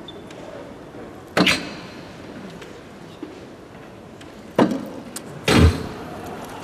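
Soft-tip darts striking an electronic dartboard: two sharp impacts about three seconds apart, the second dart missing the scoring segments. A louder, longer knock follows near the end.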